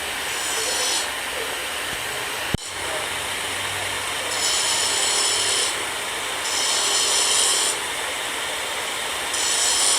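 Rasping strokes of a saw cutting metal, each about a second long and coming roughly every two seconds, over a steady hiss. A single sharp click sounds a little before three seconds in.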